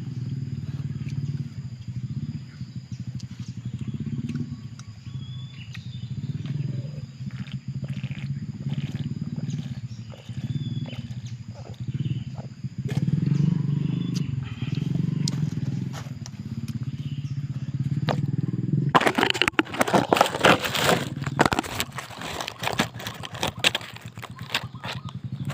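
Close-up chewing of small bird meat, with a louder stretch of dense crackling clicks starting about three-quarters of the way through and lasting several seconds.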